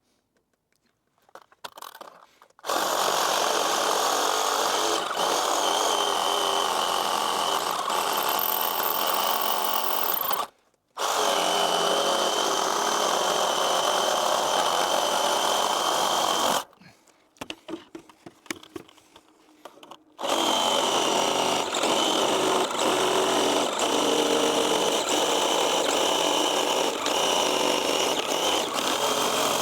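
Power saw cutting wood in three long runs of about eight, six and nine seconds, each with a steady high whine. It stops to near silence between runs.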